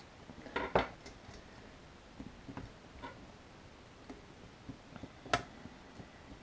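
Long screwdriver working the screws out of an airsoft M4's pistol grip: scattered clicks and light metal clinks. The loudest come about a second in, and another sharp click about five seconds in.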